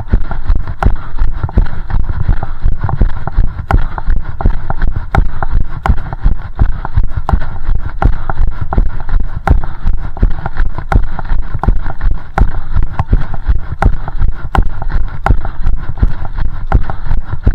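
A runner's footsteps on a wet paved road shoulder, an even beat of about three strides a second, picked up by a chest-mounted camera, with a heavy low rumble underneath from the camera jostling.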